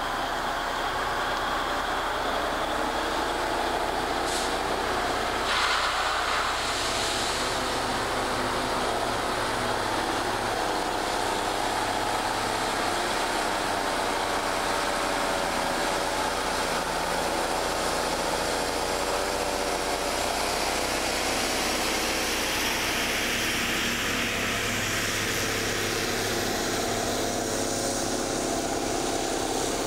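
SENNEBOGEN 875 E crawler material handler running steadily, its engine and hydraulics working the boom and scrap grapple, with a short hiss about five seconds in.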